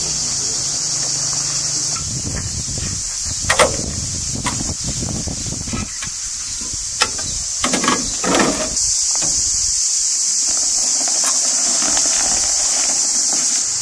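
Hollow concrete blocks knocking against each other and clunking into a steel wheelbarrow, a few sharp knocks in the middle and a quick run of them just after. Near the end the loaded wheelbarrow is pushed over the dirt. A steady high-pitched hiss runs under it all.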